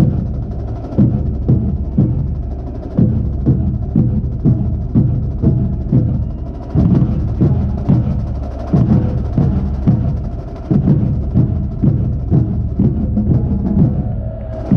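Marching band drumline playing a percussion cadence, with quick lighter strokes over the deeper drum hits. Heard from among the bass drums, whose strokes come loudest.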